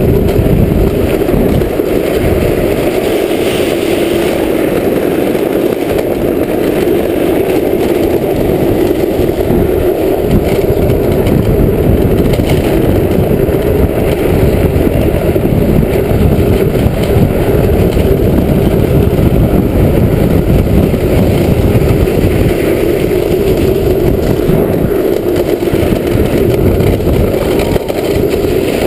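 Drift trike coasting fast down an asphalt road: its wheels rumbling on the tarmac, mixed with wind rushing over the on-board microphone, steady throughout.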